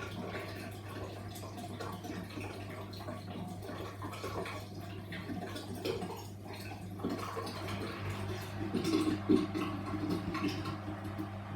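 Washing machine mid-wash: water swishing and splashing in the turning drum over a steady low motor hum. The swishes grow louder and more uneven in the last few seconds.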